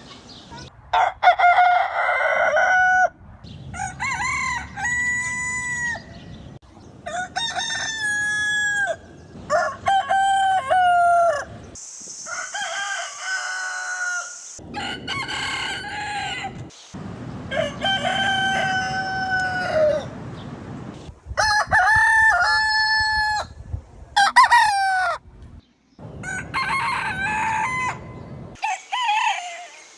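Roosters crowing, one cock-a-doodle-doo after another, about ten crows in all. Each crow lasts a second or two and ends on a long held note that drops at the close. The crows come from different recordings spliced together with abrupt cuts, and the background noise changes from one crow to the next.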